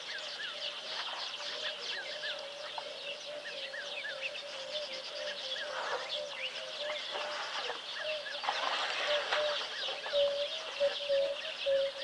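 A chorus of wild birds chirping and calling, with one lower warbling call running on steadily and growing louder in the second half.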